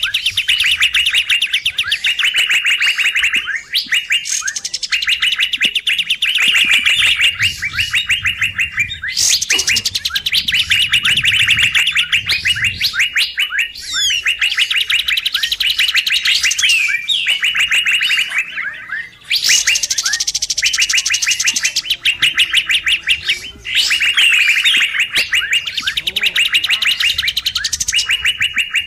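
Recorded kapas tembak bird calls used as a trapping lure: excited, noisy chattering in dense runs of rapid repeated chirps lasting several seconds, broken by short pauses and alternating with higher, finer trills.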